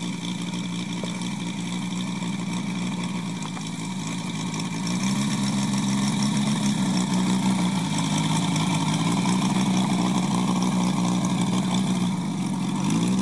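Engine of a large-scale radio-controlled warbird model running with its propeller spinning as the model taxis. It speeds up about five seconds in, eases off briefly near the end, then revs up again.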